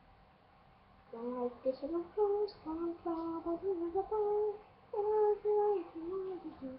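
A girl singing a short melody in held notes, starting about a second in.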